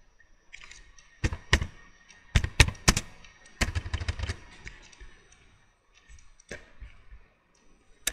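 Computer keyboard keystrokes and mouse clicks: single sharp clicks, with a quick run of them about two to four seconds in and a couple more near the end.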